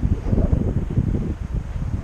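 Wind buffeting the deck-mounted camera's microphone: an uneven low rumble that swells and drops.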